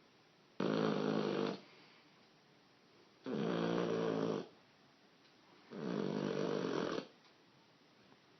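A dog snoring: three snores, each about a second long, coming roughly every two and a half seconds, with quiet breathing gaps between.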